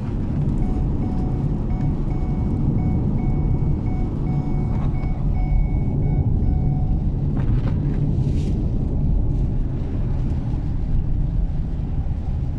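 Steady low road-and-engine rumble of a moving vehicle, as heard from inside it. A faint electronic beep repeats in short pulses through the first half, then stops.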